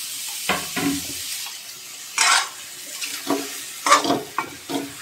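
Hot masala sizzling in a metal kadai as sliced mushrooms are tipped in, then a metal spatula stirring and scraping against the pan several times, the loudest scrape about two seconds in.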